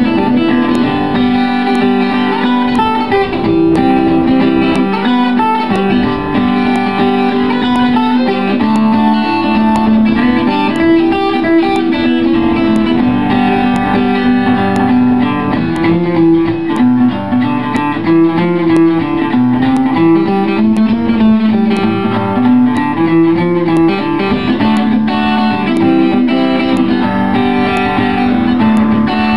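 Acoustic guitar playing an instrumental tune, a steady run of plucked notes.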